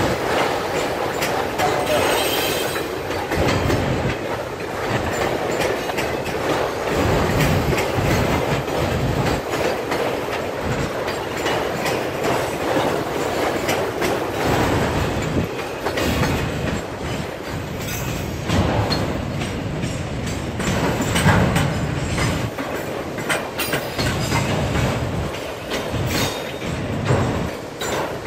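Freight train of enclosed autorack cars rolling past: a steady rumble of steel wheels on rail, with frequent clicks and clacks as the wheels cross the rail joints.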